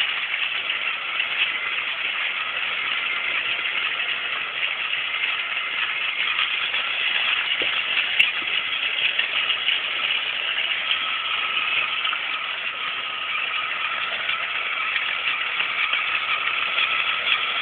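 A battery-powered Trackmaster toy train's small electric motor and gearbox whirring steadily as the engine runs along plastic track, running a bit slow.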